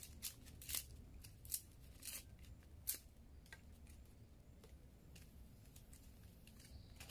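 Faint, irregular crackles and snaps of a wood fire's kindling of paper, dry leaves and sticks just catching alight. There are a handful of sharp cracks in the first three seconds, then fainter ticks.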